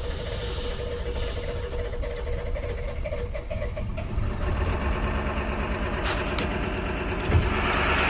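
A 7.3 Power Stroke diesel in a 1999 Ford F-250 cranking over steadily on its starter during a crank-no-start. The cranking gets louder about halfway through, and the engine begins to fire toward the end as high-pressure oil pressure finally builds.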